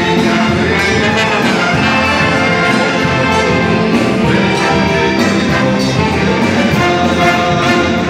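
Background music playing without a break.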